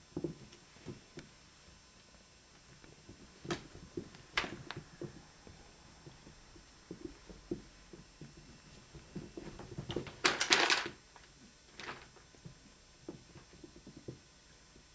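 Rabbits moving about in a cage: soft patter and scuffling of paws on a blanket with scattered light knocks, and a short burst of rustling and clicking about ten seconds in, the loudest moment.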